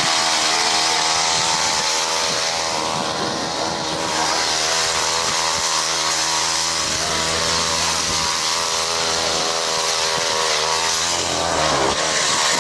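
Power ice auger's small engine running hard as it drills through lake ice, a steady engine note that dips and bends briefly about eleven seconds in.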